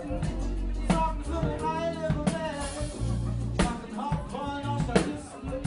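Live hip-hop music: a rapper's voice over an acoustic drum kit, with deep held bass notes under regular drum hits.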